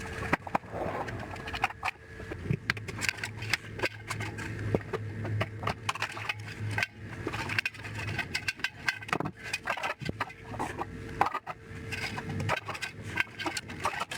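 Irregular clicks, knocks and scraping of hand tools and plastic and metal parts as a CRT television is taken apart for scrap.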